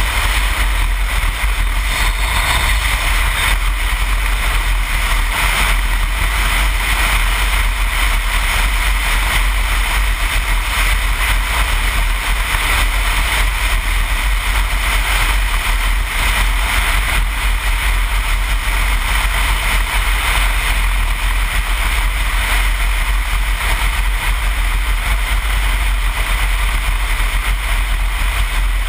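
Steady wind rush and low rumble on a helmet camera's microphone while riding a BMW R1200GS boxer-twin motorcycle at road speed, with no change in pace.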